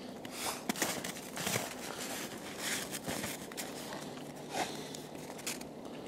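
Footsteps crunching in snow: a string of irregular crunches and shuffles through the snow and brush.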